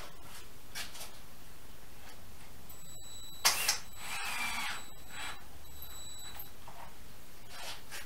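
Cordless drill running briefly to drive a one-inch pocket screw into a wooden roof spar, just after a sharp clatter about three and a half seconds in, with a few faint knocks of handling around it.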